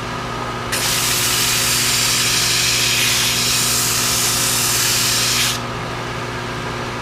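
Belt sander running with a steady hum; about a second in, the leading edge of a rocket fin is pressed against the moving belt and sanded for about five seconds with a loud, even hiss, then lifted off while the motor keeps running.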